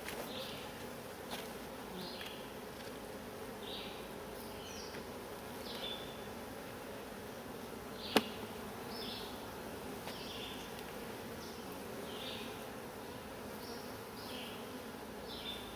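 Honeybees buzzing in a steady hum around an open hive. Short high chirps repeat about once a second, and there is a single sharp click about eight seconds in.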